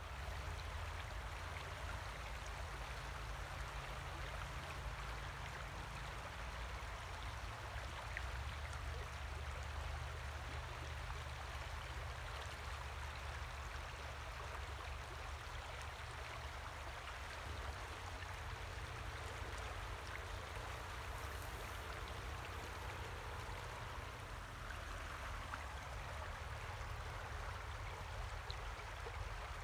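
River water running steadily, an even rushing with a low rumble underneath.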